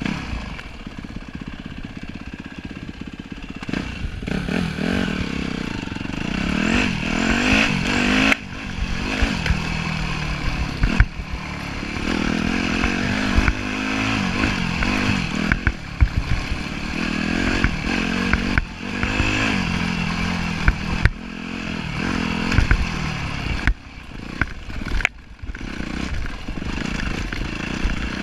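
2010 Yamaha YZ250F's 250 cc single-cylinder four-stroke engine under way on a dirt trail, revving up and down as the throttle is repeatedly opened and then chopped. Scattered clattering knocks come through over the bumps.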